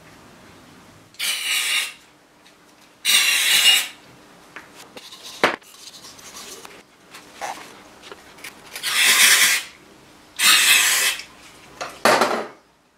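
Five short, loud bursts of aerosol cleaner spray, each starting and stopping abruptly, used to clean brake master cylinder parts. A sharp click about five seconds in, with rag rustling and parts being handled between the bursts.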